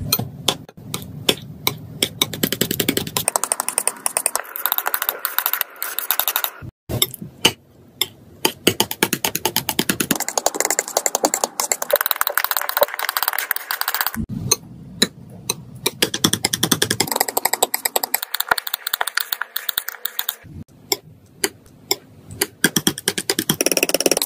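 Metal palette knife mixing thick wet paint on paper: quick, dense sticky taps and scrapes, coming in bursts with short pauses.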